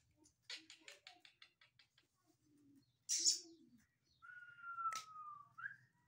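Scattered soft clicks and ticks, then a short hiss about three seconds in. After that comes one long whistled note that drifts slightly down in pitch and turns upward at its end.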